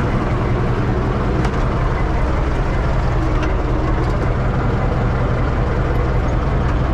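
Universal 650 tractor's four-cylinder diesel engine running steadily under way, heard from inside the cab as a strong, even low drone.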